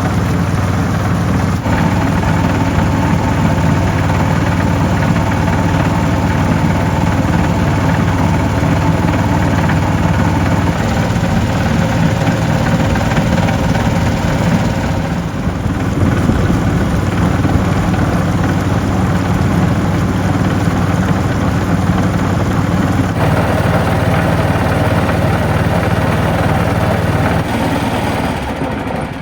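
A small boat engine running steadily with a low, even hum, shifting slightly in tone a few times.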